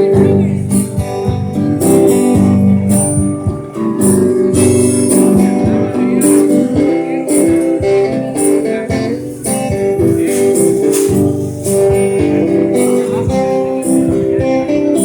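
Music with guitar and jingling percussion keeping a steady beat.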